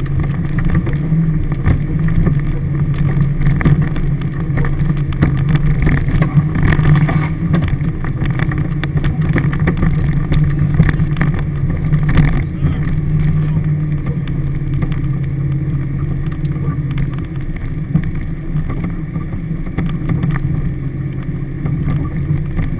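Toyota Hilux engine running steadily, heard from inside the cab as it drives a rough dirt 4WD track, with occasional knocks and rattles from the body and suspension. It becomes a little quieter about two-thirds of the way through.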